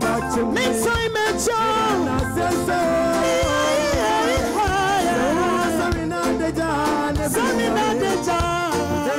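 Live gospel band music with a woman singing lead into a microphone over drums, bass guitar and keyboards, at a steady beat.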